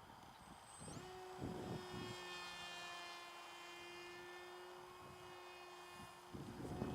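Electric motor and propeller of an Opterra 2 m RC flying wing running in flight, a steady whine that comes in about a second in. Gusts of wind buffet the microphone, more so near the end.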